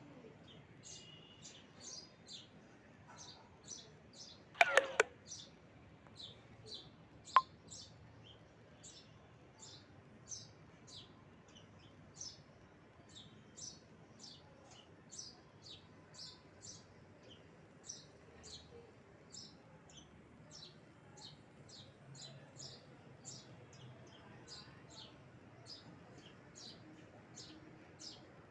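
A bird calling a short, high chirp over and over, roughly two a second. About five seconds in there is a quick burst of loud knocks, and a single sharp click follows a couple of seconds later.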